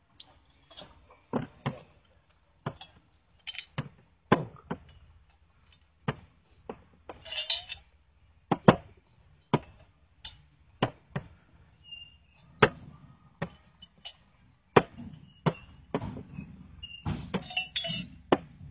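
Small glass liquor bottles knocking and clinking as they are set down one after another on a crowded table, a sharp knock every half second to a second, with a short burst of glass chinking twice.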